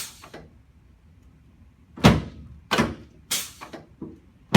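Sharp clunks from chiropractic adjustments on a treatment table. There is one clunk at the start, then after a pause of about two seconds three more come roughly half a second apart, and another near the end.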